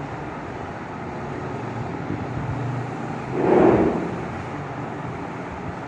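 Chalkboard duster rubbing across the board, one swell of scrubbing noise about three and a half seconds in, over steady background noise.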